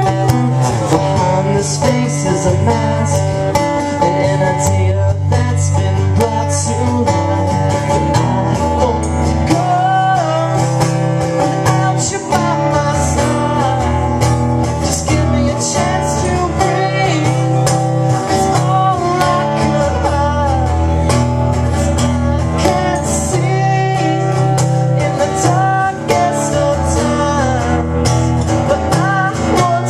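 A man singing while strumming an acoustic guitar, a solo country-folk song performed live.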